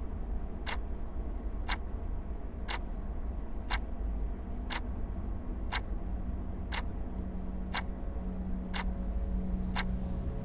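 Wall clock ticking loudly and evenly, about once a second, over a low steady hum. A low drone tone joins the hum about seven seconds in.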